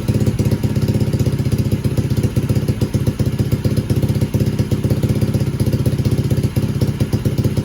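125cc dirt bike engine idling steadily with an even, unchanging beat, running again after sitting unused, on a newly fitted carburetor.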